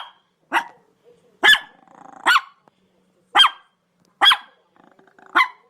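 A dog barking: six short, sharp barks at an uneven pace of about one a second.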